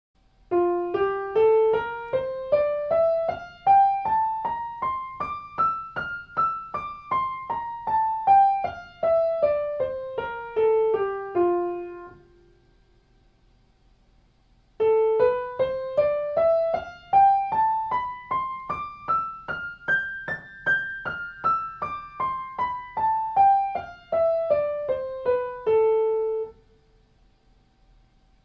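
Piano, right hand alone, playing an F major scale two octaves up and back down in even notes. After a pause of a couple of seconds it plays an A natural minor scale, two octaves up and down.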